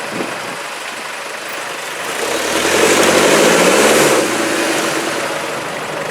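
Off-road 4x4's engine running, revving up about two seconds in, held high for a couple of seconds, then easing back off.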